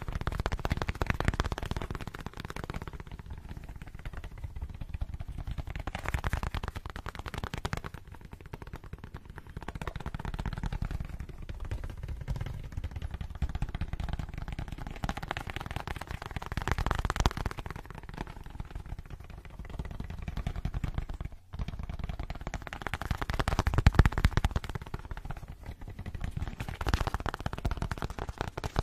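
Very fast fingertip tapping on a black case held close to a microphone: a dense, rapid patter of soft taps that swells and eases every few seconds.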